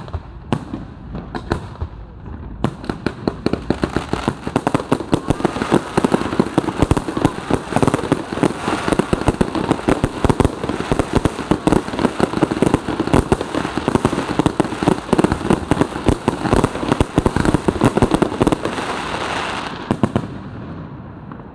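Aerial fireworks going off. A few separate bangs come first, then from about three seconds in a dense, rapid barrage of bangs and crackling keeps up until it dies away near the end.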